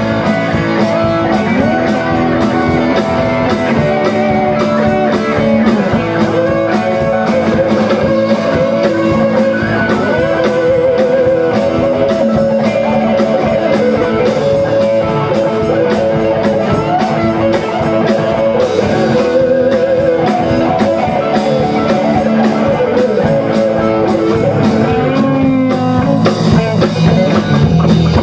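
A rock band playing live: two electric guitars, an electric bass guitar and a drum kit keeping a steady beat.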